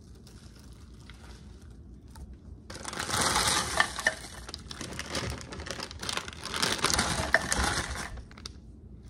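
Frozen broccoli florets poured from a plastic bag into a slow-cooker crock: the bag crinkles and the hard pieces rattle and clatter as they land, for about five seconds starting near three seconds in.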